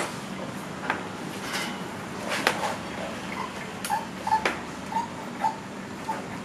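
Yamaha 125ZR's rear suspension loaded by a seated rider testing the rebound of a newly fitted Racing Boy E2 Line monoshock: scattered light knocks, then a series of short squeaks in the second half, over a faint steady hum.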